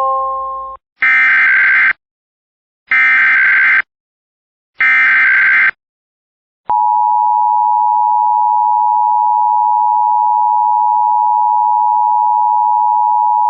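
A held three-note chime chord fades out, then three screeching bursts of Emergency Alert System SAME header data, each about a second long and two seconds apart. About a second after the third burst, the EAS two-tone attention signal starts, a steady harsh dual tone.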